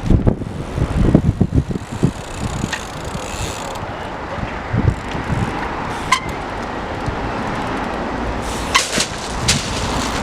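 Trials bike ridden on wet concrete: several dull knocks of tyres landing in the first two seconds, then a steady rushing noise with a few sharp clicks.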